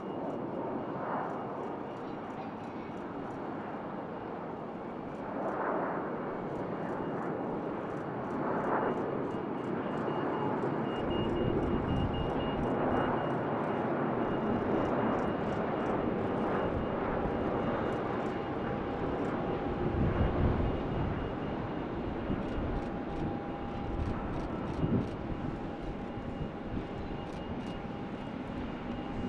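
Airbus A330-243MRTT tanker's Rolls-Royce Trent 700 jet engines on approach: a steady jet roar with a thin whine over it, a deep rumble joining about eleven seconds in, and gusts of wind on the microphone.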